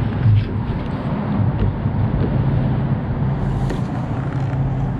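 A multi-tool blade cuts through a corrugated plastic pool vacuum hose, giving a few faint scraping clicks over a steady low rumble.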